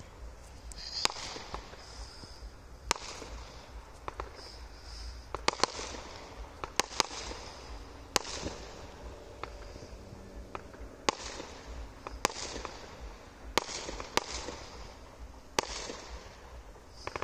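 Fireworks going off: a dozen or so sharp bangs at irregular intervals, each trailing off briefly.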